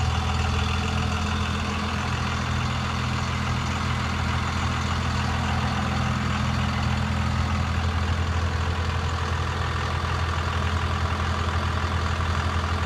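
1999 Dodge Ram 2500's 5.9 L Cummins inline-six turbo diesel idling steadily.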